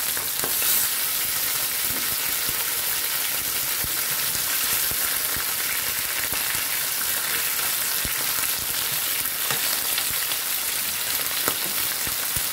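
Pieces of beltfish frying in hot oil in a pan: a steady sizzle with many small crackles and pops all through.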